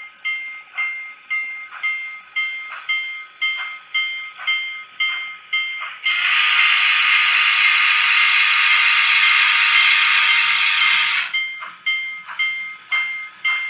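Steam locomotive bell sound ringing steadily about twice a second, broken about six seconds in by a long steam whistle blast of about five seconds, after which the bell rings on. It is the sound accompanying a Union Pacific 844 model locomotive.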